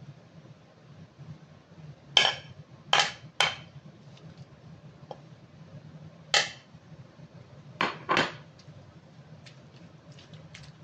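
Stone pestle knocking against a ceramic plate and the rim of a mortar while fried chilies are scraped off the plate: six sharp clinks, some with a short ring, in loose groups of two or three.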